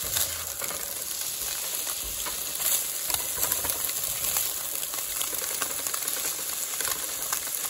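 Tofu scramble with diced onions sizzling steadily in a hot skillet, with short scrapes and clicks as a spatula stirs the pan.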